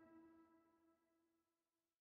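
Background music fading out: a held chord dies away to silence about a second and a half in.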